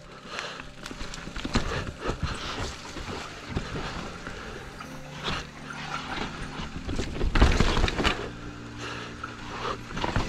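Mountain bike ridden fast down a dirt trail: tyres rolling and skidding over dirt, roots and rocks, with the bike chattering and rattling over the bumps. Heavier thuds about three-quarters of the way through.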